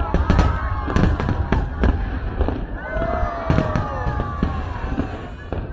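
Fireworks display going off: many sharp bangs and crackles in quick succession over a continuous low rumble.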